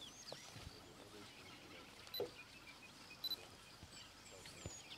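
Faint bush ambience: small birds chirping and whistling, with two short, sharp high notes about a second apart.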